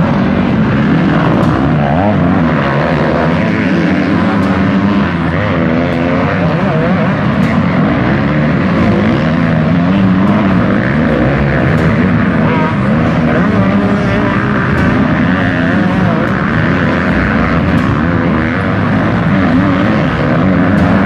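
Several motocross bikes racing together, their engines revving up and down and overlapping in a steady, loud buzz.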